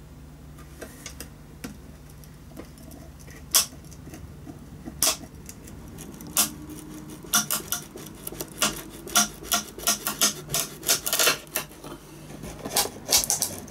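Knife blade being pried into the glued joint between a violin's fingerboard and neck: sharp clicks and small cracks as the joint gives. A few come singly at first, then they come thick and fast through the second half.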